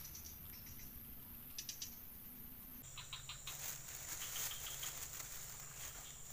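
Faint clicks and crinkles of hands handling a plastic bag and a fishing rod, a few quick clusters of small clicks about one and a half and three seconds in. A steady high-pitched drone runs behind them and steps down in pitch about three seconds in.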